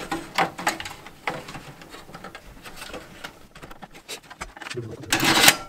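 Computer cables and plastic connectors being handled inside a desktop PC case: scattered small clicks and rustles as a SATA data cable is routed and plugged in, with a louder rustle about five seconds in.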